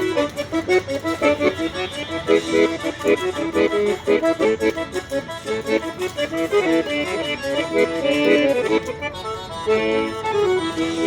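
Accordion playing traditional music, a quick run of short notes over sustained chords.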